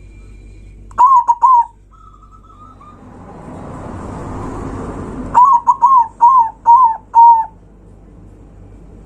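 Zebra dove (perkutut) cooing loudly: a quick phrase of three clipped, staccato coos about a second in, then a longer run of about six coos after the middle. Between the phrases a rushing noise swells and cuts off suddenly.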